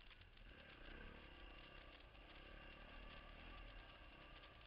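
Yamaha dirt bike engine running, heard faintly and steadily while the bike rides along a trail.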